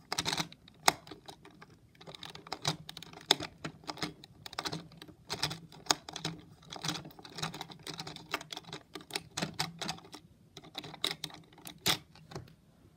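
Irregular plastic clicks and taps of a Hexbug BattleBots Witch Doctor toy robot being handled by fingers, stopping shortly before the end.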